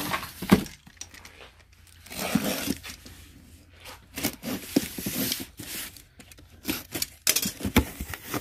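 A cardboard box being torn open, its packing tape ripping in a few rasping pulls, with crinkling and several knocks as the box and its contents are handled.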